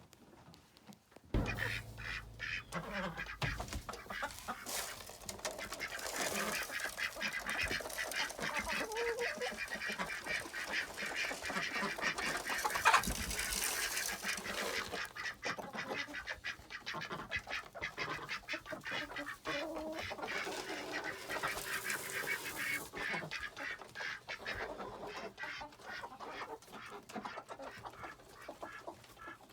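A flock of ducks quacking busily, many short calls overlapping, starting suddenly about a second in.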